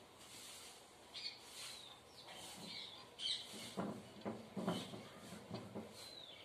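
A board duster wiping a marker whiteboard in a run of about six quick rubbing strokes, starting a little under four seconds in. Small birds chirp faintly before the wiping and again near the end.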